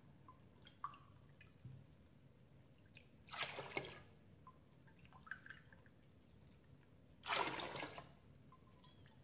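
Cold water poured cup by cup with a stainless measuring cup into a stainless steel bowl of apple juice: two short splashing pours about four seconds apart, with a few light clinks of the metal cup between them.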